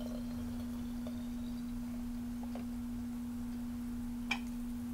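A steady low hum on one pitch, with a faint click about four seconds in.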